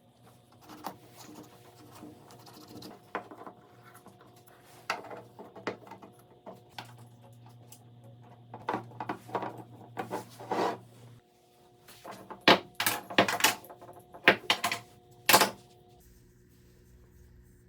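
Hand work on a workbench: a string of irregular sharp clicks and knocks from wood pieces and tools being handled and set down, the loudest coming in a quick cluster a little past the middle. A faint low hum runs underneath and stops partway through.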